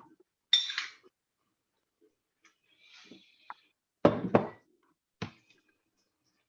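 Pots, pans and utensils clinking and knocking in a kitchen while noodles are drained: a bright clink about half a second in, then two heavy knocks about four seconds in and a lighter one just after five.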